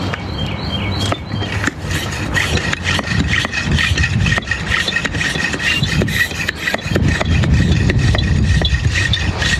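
Small portable air compressor (cordless inflator) running and pumping through its hose, a rapid rattling buzz with a thin steady whine that sets in about two seconds in.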